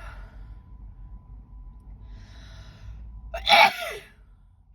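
A woman's breathy intakes build up to a single loud sneeze about three and a half seconds in.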